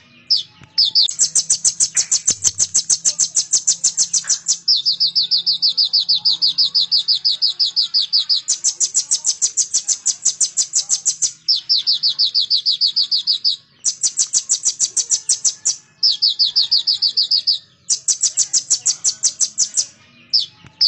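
Caged male sunbird singing: fast trills of about ten sharp, high notes a second, in phrases of two to four seconds that alternate between a higher and a slightly lower pitch, with brief pauses between them.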